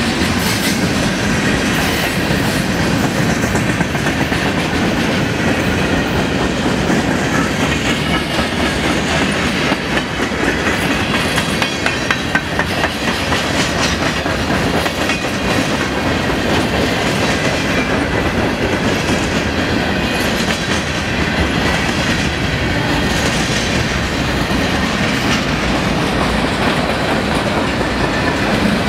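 Freight cars of a long, slow manifest train rolling steadily past: steel wheels running on the rails with a continuous rumble and many rapid clicks as the wheels cross rail joints.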